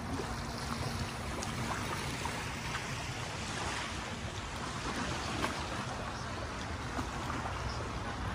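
Steady outdoor wind buffeting the microphone, with small waves lapping on a sandy river shore.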